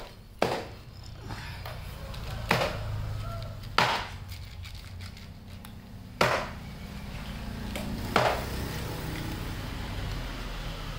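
Domestic cat crunching dry kibble: five sharp crunches a second or two apart, over a steady low hum.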